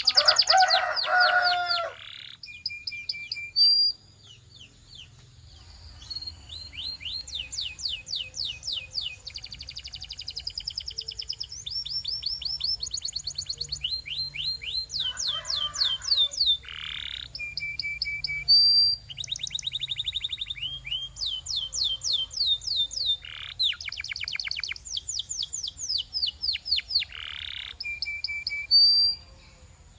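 Domestic canary singing a long song of fast trills and rolls of rapidly repeated notes, broken by short held whistles and rising swoops. A louder, lower phrase opens the song.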